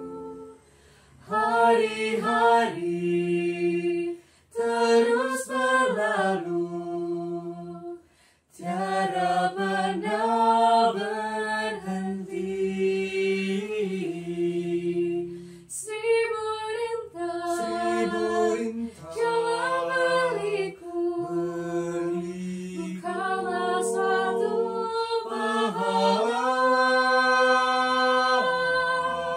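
Four-voice a cappella vocal group, two male and two female voices, singing in close harmony without accompaniment. The phrases are held and sustained, with brief breaths between them about a second, four seconds and eight seconds in.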